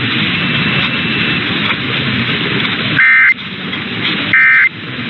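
AM radio hiss and static, then two short, loud bursts of warbling two-tone SAME digital data, each about a third of a second long, a little over a second apart: the end-of-message code that closes an Emergency Alert System test broadcast.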